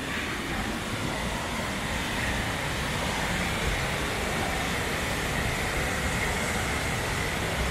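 Waterfall cascading down stepped rock ledges close by: a steady, loud rush of white water.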